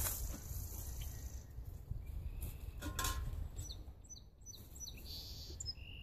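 Low wind rumble on the microphone with a couple of knocks, and small birds chirping a few quick falling notes in the second half; no engine running.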